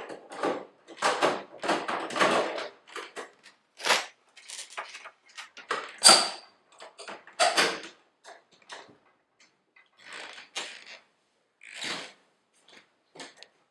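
Irregular metal clunks, scrapes and clicks as a heavy 700-watt power supply is slid back into the IBM IntelliStation POWER 285's chassis. The sharpest clack comes about six seconds in.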